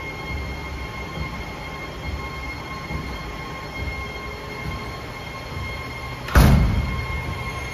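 Belt-type optical color sorter running: a steady machine hum with a thin, high, steady whine over a low rumble. A single loud thump comes about six seconds in.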